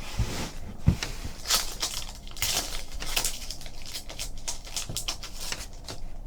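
Foil trading card pack wrapper crinkling as it is torn open, with cards rustling as they are slid out and handled.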